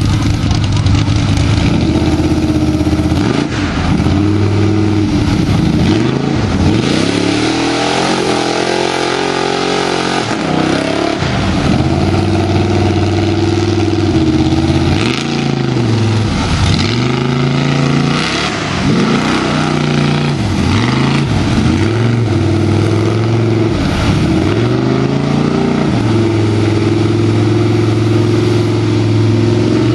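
Lifted Chevy mud truck's engine revving up and dropping back over and over while it pushes through deep mud on 44-inch Boggers tires.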